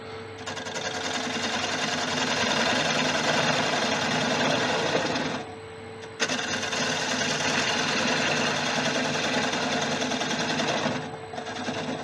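Turning tool cutting across the face of a piece spinning on a wood lathe, a steady rasping scrape in two passes of about five seconds each with a short break between. The cuts are truing the face completely flat.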